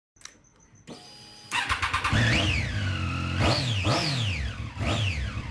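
Motorcycle engine catching about a second and a half in, then revved four times over a steady idle, each rev a quick rise and fall in pitch.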